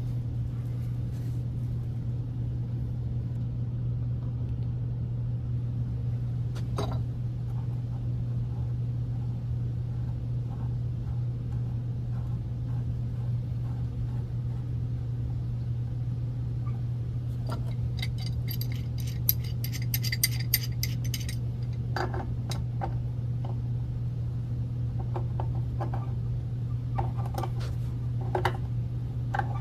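Metal tools and pipe fittings being handled: scattered clicks and taps, with a quick run of bright jingling clinks about two-thirds of the way through, over a steady low hum.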